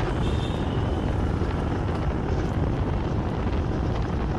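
Steady low rumble of wind buffeting the microphone mixed with engine and road noise from a moving vehicle.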